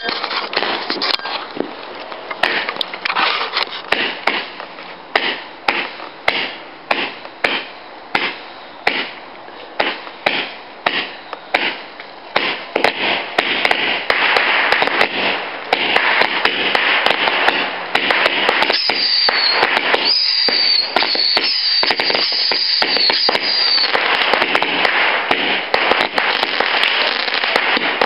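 Fireworks going off: a fast run of sharp bangs, about two a second, then a dense, continuous crackling from about halfway through. A high, wavering whistle runs for a few seconds in the second half.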